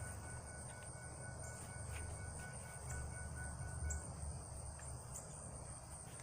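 Quiet background: a steady high-pitched whine or trill over a low rumble, with a fainter tone that stops about four seconds in and a few faint clicks.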